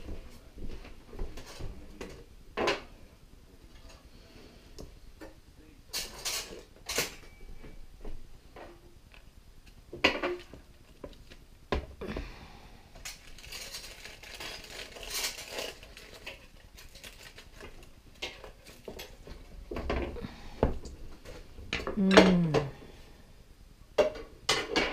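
Clinks and knocks of a metal carving fork and knife against a roasting pan and a wooden cutting board, with aluminium foil rustling, as a beef rib roast is lifted out of its pan. A short, loud falling pitched sound near the end.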